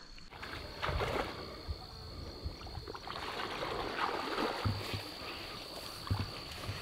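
River water rushing and splashing, with a few soft low thumps, over a steady high chirr of insects.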